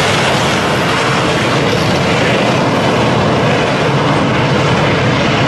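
T-80BV main battle tank driving past at speed, its gas-turbine engine running in a loud, steady rush of noise.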